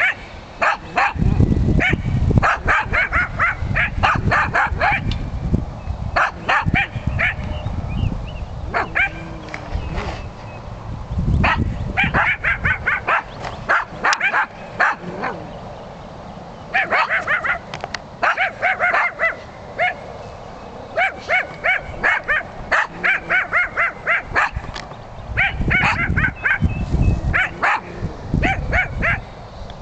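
Jack Russell terriers barking at cattle in fast runs of short, high yaps, several a second, with brief pauses between runs.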